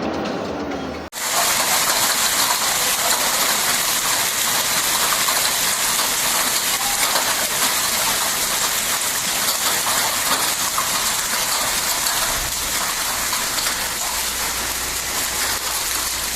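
Heavy rain pouring down as a dense, steady hiss that starts abruptly about a second in.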